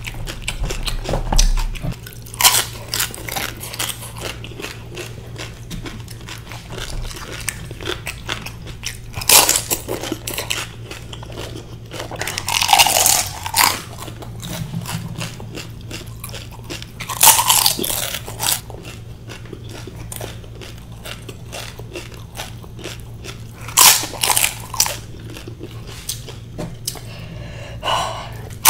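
Crisp, hollow pani puri shells being bitten and chewed with a constant run of crunching. Louder bites come every few seconds, several in all.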